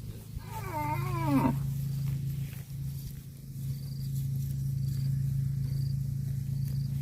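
A calf moos once, a short wavering call of about a second that drops in pitch at the end, over a steady low hum. Faint short high chirps repeat about once a second.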